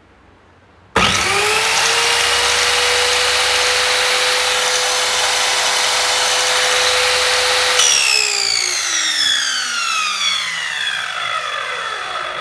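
Brushed (carbon-brush) universal motor of a power saw switched on, running at full speed with a loud, high whine, then switched off about eight seconds in and spinning down with a steadily falling pitch.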